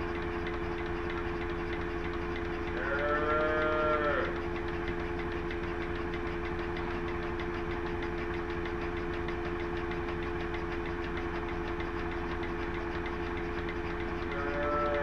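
A cow moos once, a rising-then-falling call lasting over a second, and starts a second moo near the end, over a steady machine hum.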